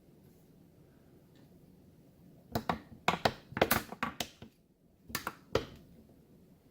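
A quick run of sharp clicks and knocks from small hard objects being handled and set down on a workbench, about a dozen in two seconds starting a little way in, then two more near the end.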